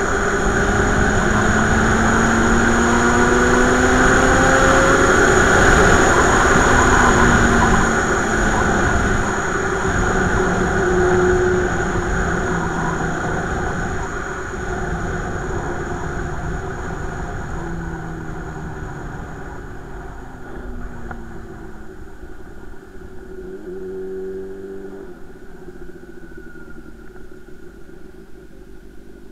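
Motorcycle ridden at highway speed, with loud wind rush over the engine. It then slows down: the wind noise fades and the engine note falls away in glides. By the end it is rolling slowly and much quieter.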